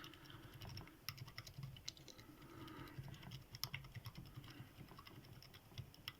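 Faint, irregular small metal clicks and scrapes of a rake pick being rocked in the keyway of a 5-pin Syneco 40mm padlock, working the pins.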